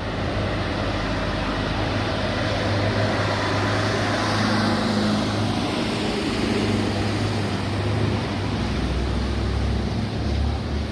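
Old Harapan Baru 'Arjuna' bus on a Nissan CB chassis driving past, its diesel engine running with a steady low hum. It is loudest about four to five seconds in as it goes by, and a deeper engine rumble builds near the end.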